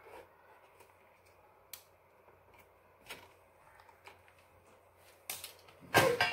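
A few faint, scattered clicks, typical of a computer mouse being clicked, with a short louder sound with a bending pitch near the end.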